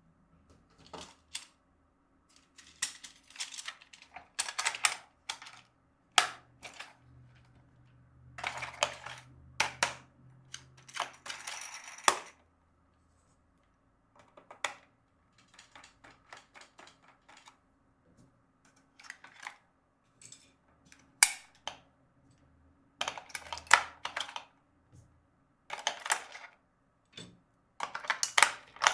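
Plastic toy parts and packaging being handled: irregular clicks, taps and short rustles in scattered clusters with brief pauses between.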